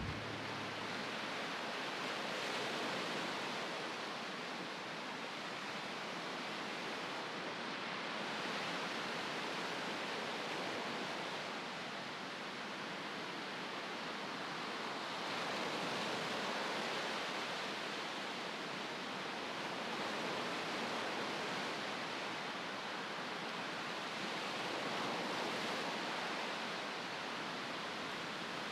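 Ocean surf: a steady wash of breaking waves that swells and eases gently every few seconds.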